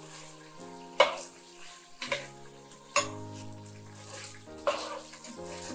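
Pork sizzling as it fries in oil in a clay cazuela while being stirred, with four sharp knocks of the stirring utensil against the pot about a second apart. Background music with sustained chords runs underneath.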